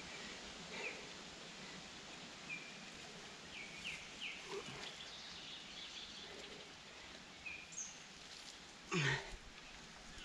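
Riverbank ambience: a steady hiss with scattered short bird chirps. About nine seconds in comes one short, loud grunt-like sound.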